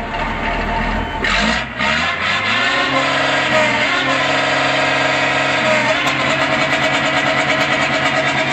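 MAN 22.190 truck's diesel engine, heard at the exhaust pipe, idling and then revved up about a second in: the pitch climbs, holds high, dips briefly near the six-second mark and holds high again. The engine is new.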